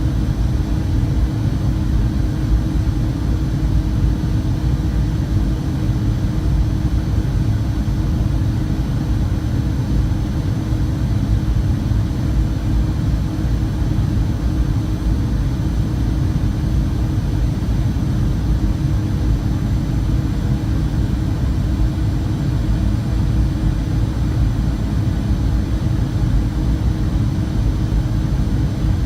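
Steady jet airliner cabin noise heard from inside the cabin: a loud, even rumble of engines and airflow that holds constant throughout, with a faint high whine over it.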